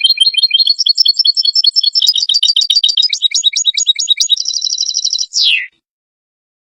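European goldfinch twittering: a fast run of short, high chirping notes that ends about five seconds in with one quick falling note.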